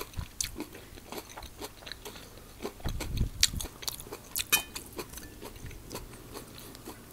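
Close-miked chewing of a mouthful of quinoa salad with cucumber, corn and cherry tomato: many short, wet crunching clicks and smacks. A fork clinks on the plate about four and a half seconds in as it scoops more salad.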